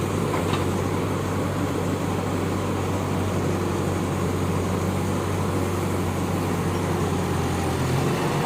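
Heavy diesel engine running steadily with a constant low hum; the pitch shifts slightly near the end.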